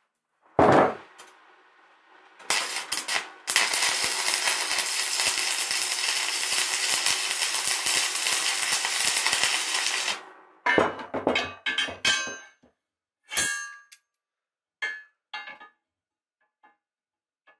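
A length of steel square tubing clangs loudly once, a little way in. After a couple of brief sputters, an electric arc welder crackles steadily for about seven seconds as it welds the steel box-section frame, then stops abruptly. A run of sharp metallic clinks and knocks on the steel follows.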